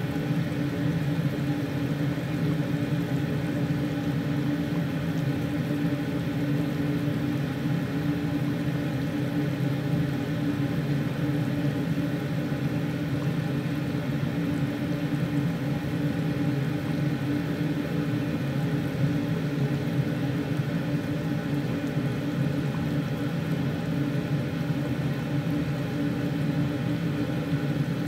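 Steady low whirring hum in a kitchen where a large steel pot of chicken broth is boiling on a gas stove.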